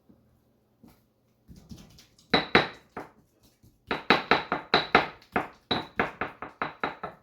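Pestle pounding avocado in a mortar: a few strikes about two seconds in, then steady pounding about three strikes a second from about four seconds in, each stroke with a short ring.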